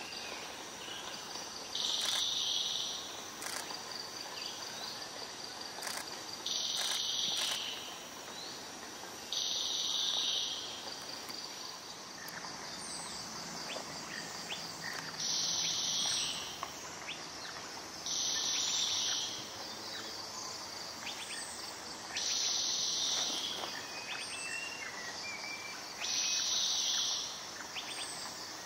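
Forest insects: a buzzing call repeats in bursts of about a second, roughly every three to four seconds, over a steady high-pitched insect drone. A few faint short chirps come in the second half.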